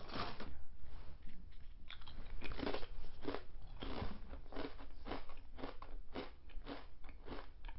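A person biting into and chewing crunchy Lay's potato chips: a run of irregular sharp crunches, a few each second.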